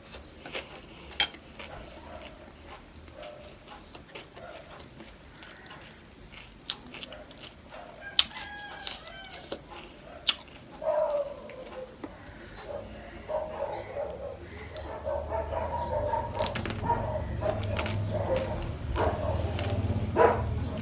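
Crisp crunches and chewing from eating panipuri and chatpate, with a fowl calling repeatedly in the background from about halfway on.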